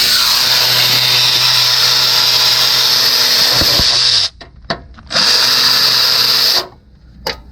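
Handheld power tool, a drill-driver type, spinning out one of the 13 mm oil pump bolts on a 3.6L V6. It runs steadily for about four seconds, stops, then runs again for about a second and a half.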